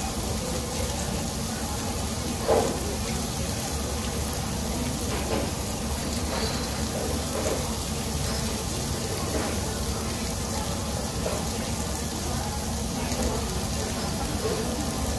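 Beef sizzling on a tabletop Korean barbecue grill, a steady hiss, with faint snatches of voices.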